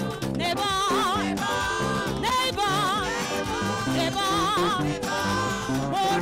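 Gospel praise-and-worship singing: a woman lead vocalist sings with a wide vibrato into a microphone, with backing singers and a steady instrumental accompaniment.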